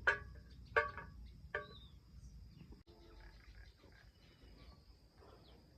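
An animal gives short, pitched calls about 0.8 s apart in the first two seconds, then only faint scattered sounds, over a faint steady high-pitched whine.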